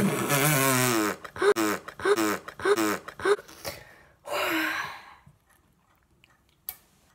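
A boy gagging and dry-heaving on boiled egg eaten with its shell: a long strained retch, then about five short voiced heaves half a second apart, then a long noisy breath out. A small click near the end.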